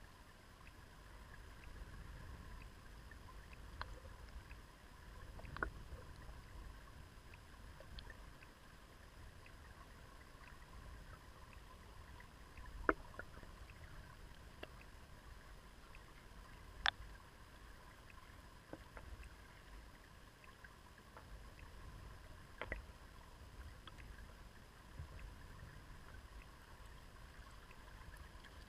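Faint underwater sound of a shallow river flowing over a pebble bed: a low rumble of current with a handful of sharp clicks of stones knocking, the loudest about halfway through and again a few seconds later.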